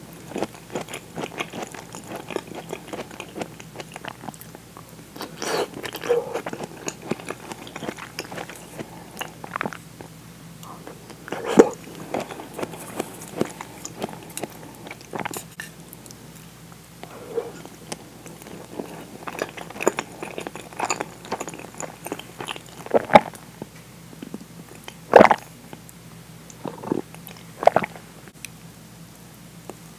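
Close-miked eating sounds: chewing and biting, with wet mouth clicks, as soft potato and onion pieces from miso soup are eaten with chopsticks. A few louder sharp clicks stand out, at about 11 s and again three times near the end.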